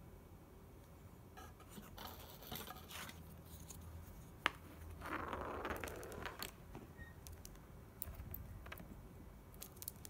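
Pet budgie playing with small plastic toys on a wooden floor: faint scattered clicks and taps, one sharp knock about four and a half seconds in, then a short scraping rustle.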